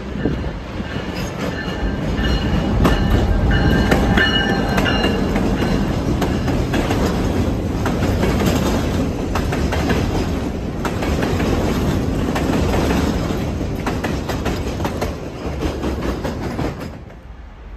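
Train running along the track, a steady rumble with clicks of the wheels over rail joints. High wheel squeal comes in from about a second to five seconds in. The sound drops off suddenly near the end.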